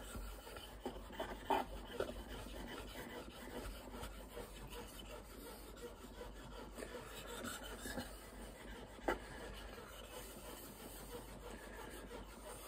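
Fallkniven F1's VG10 steel blade stroked flat back and forth on a wet whetstone: a faint, continuous scraping rasp of steel on stone, with a couple of short clicks.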